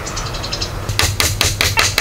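Hatchet striking a wooden pole in a quick run of about seven sharp blows in the second half, over a steady low background hum.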